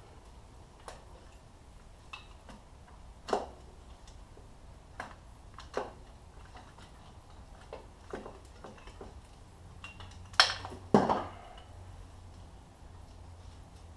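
Scattered light metallic clinks and taps of hand tools and engine parts being handled during a dirt-bike engine teardown, with two louder clanks close together near the end.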